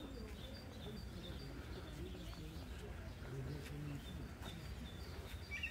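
Faint birdsong: short high chirps repeating about twice a second, with a louder chirp near the end, over low cooing of pigeons.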